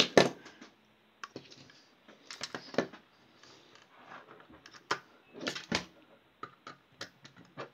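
Small screwdriver turning a screw into a night light's casing: irregular clicks and short scrapes, with a few sharper knocks spread through.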